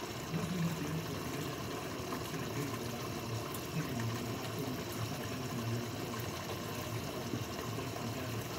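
Steady watery hiss and bubbling of pots cooking on a lit gas stove: pasta boiling and spaghetti sauce simmering.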